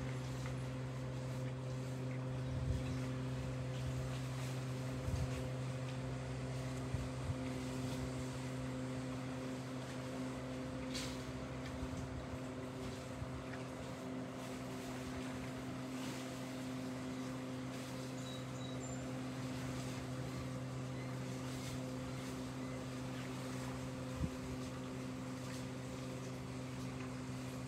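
An engine running steadily at a constant low drone, with a few faint knocks over it.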